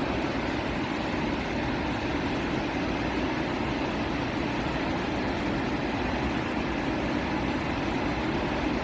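Corra Linn waterfall on the River Clyde, falling water making a steady, unbroken rush with most of its weight low down.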